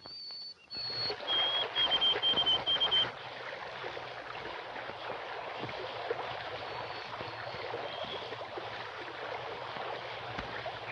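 A bird calling in high whistled notes, two longer notes and then a quick run of about six short ones, followed by a steady rushing of flowing water.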